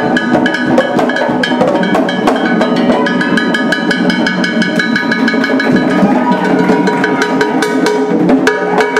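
Haitian drummers playing a fast, steady percussion rhythm.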